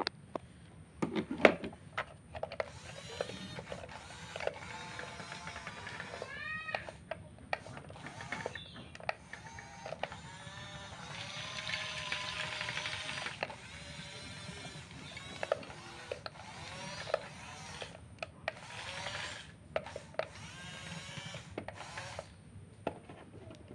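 Small electric motors of radio-controlled model construction machines whining, rising and falling in pitch, with scattered clicks and knocks.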